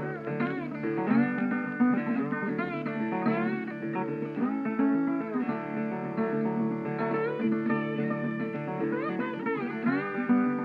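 Background guitar music: plucked and strummed notes with sliding, bent pitches.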